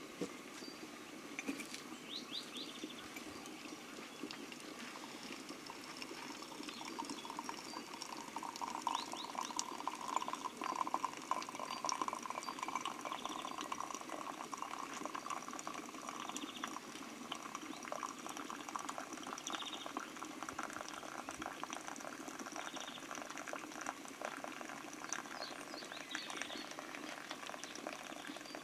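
Samovar at a rolling boil, with hot water running from its tap into a cup. The running-water sound is loudest around the middle.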